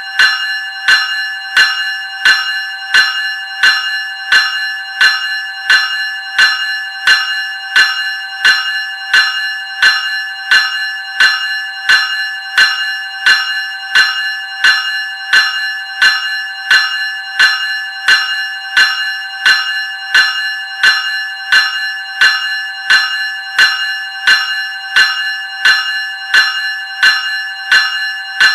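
Graham 373 series electric bell ringing with evenly spaced strokes, about three every two seconds. Each stroke rings on into the next, so the bell never falls silent.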